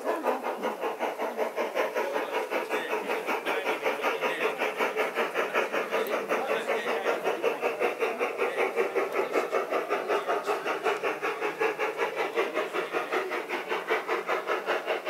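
Battery-powered, radio-controlled large-scale model steam locomotive chuffing in a quick, even rhythm as its train runs along the garden track.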